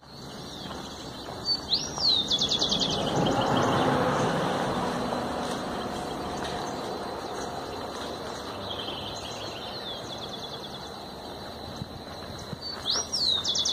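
A bird singing: a rising whistle followed by a fast run of falling notes, heard twice, with a fainter phrase in between. Underneath is a steady outdoor rush of noise that swells for a few seconds early on and then eases, and a thin steady high tone.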